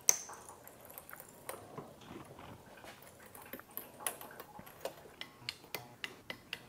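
A run of faint, irregular sharp clicks and light taps that come closer together after about four seconds, with one sharper click at the start.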